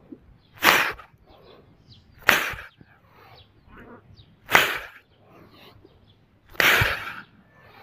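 Four clapping push-ups on pavement, roughly every two seconds: each a sharp hand clap in mid-air with the hands smacking back down.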